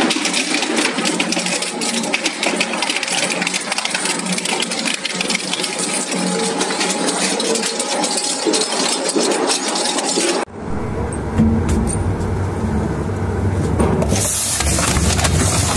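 Industrial shredder crushing material: a dense, irregular run of cracks and crunches. About ten seconds in it breaks off abruptly into a deep, steady machine rumble, with a hiss joining it near the end.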